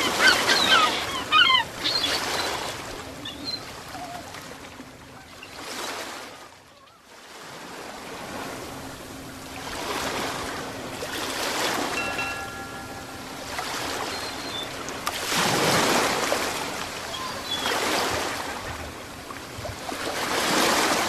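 Ocean waves washing in and drawing back, a surge every few seconds with a lull about a third of the way through. Short high chirps come near the start.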